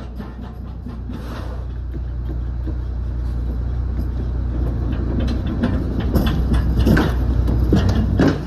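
A manual pallet jack rolls a loaded pallet across a box truck's cargo floor, its wheels rumbling and clattering. The noise grows louder and choppier as it passes close by, about two-thirds of the way in. Under it runs a steady low hum.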